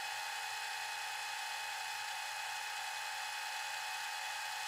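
Steady whine of a small motor running at constant speed, with no change in pitch or level.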